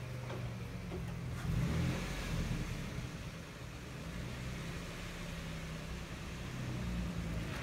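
Nissan Xterra SUV engine running under load as it climbs a flight of stairs, a steady low engine sound that swells slightly about a second and a half in.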